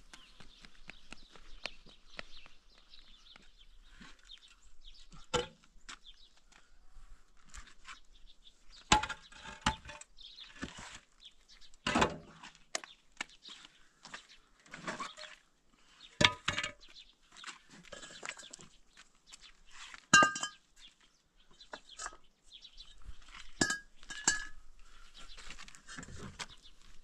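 Hollow concrete and clay building blocks being handled and set down, knocking and clinking against each other in a string of separate sharp knocks, some with a brief ringing clink.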